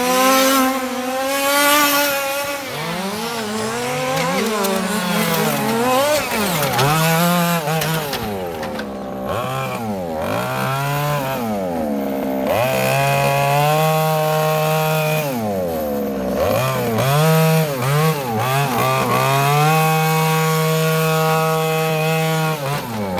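1/5-scale RC Mini cars' Zenoah 26cc single-cylinder two-stroke petrol engines revving up and down as the cars race through the corners. Later the engine note holds steady and high for several seconds at a time between short dips.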